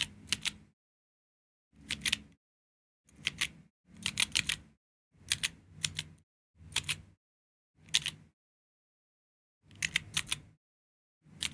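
Keys of a Georgi stenographic keyboard being chorded: short clusters of clicking key presses about once a second. Each cluster is one steno stroke, several keys pressed together and released, with silence between strokes.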